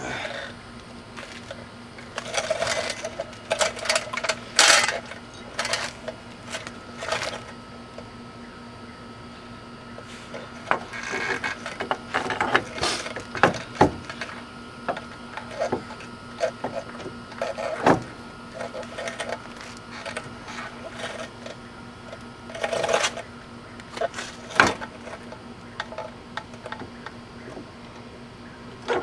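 Metal hand tools and car parts clinking, knocking and rattling during hub work, in scattered clusters of sharp clicks with pauses between them. A faint steady hum runs underneath.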